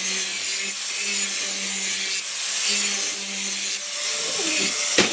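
Power tool grinding or sanding steel in repeated passes of about a second each, a loud abrasive hiss over a steady low hum, with a sharp click near the end.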